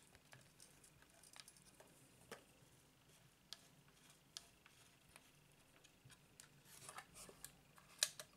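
Faint handling noise of a LOMO Lubitel 166 twin-lens reflex camera: fingers turning its lens rings and shifting the plastic body, scattered small clicks and rubs, with a sharper click near the end.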